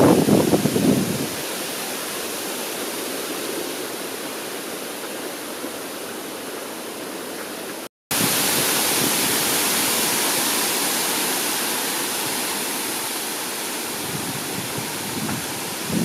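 Steady rushing hiss of a forest fire burning, with a lower, uneven rumble over it in the first second and again near the end. It drops out to silence for a moment about halfway through.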